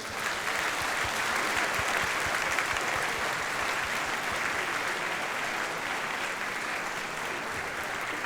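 An audience applauding steadily, a dense patter of many hands clapping in a large hall.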